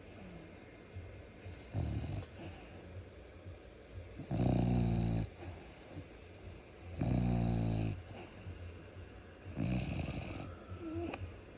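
French bulldog snoring in its sleep: four buzzing snores, about one every two and a half to three seconds, each lasting about a second, the middle two loudest. This kind of snore is typical of the breed's short, flat-faced airway.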